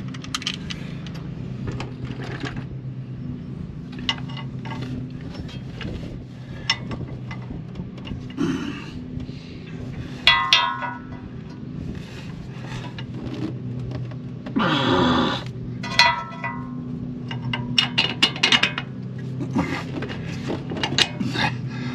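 Metal clinks, taps and short ringing strikes of a wrench and bolt against the lower eye and bracket of a Bilstein shock absorber being lined up and bolted to a truck's front axle. Under them runs a steady engine drone from a lawn mower.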